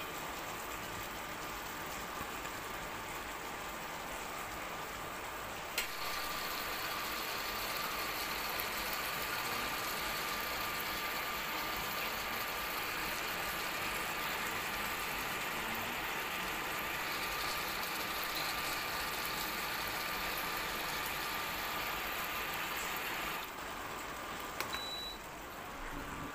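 Chicken feet simmering in a soy and oyster sauce in a wok: a steady sizzling, bubbling hiss. It gets louder after a click about six seconds in and drops back a few seconds before the end.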